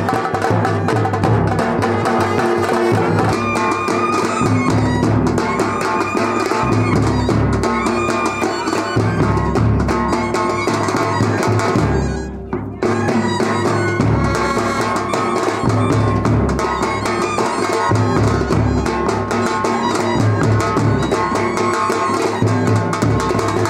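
Music with a driving drum beat and horns; the high end briefly drops out about halfway before the full mix returns.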